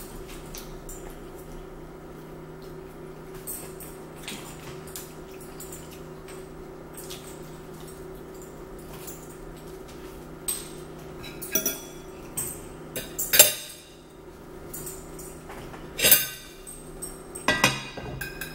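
Cutlery and dishes clinking and knocking on plates at the table, with sharp clinks scattered through the second half, the loudest about two-thirds of the way in, over a faint steady hum.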